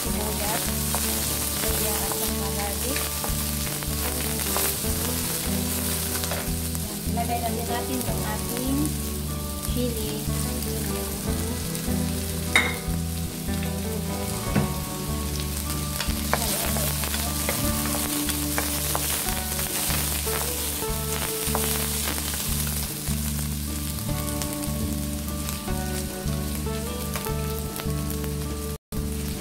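Chopped onion, ginger and green chillies sizzling in hot oil in a frying pan, stirred and scraped around with a wooden spatula. One sharp knock near the middle.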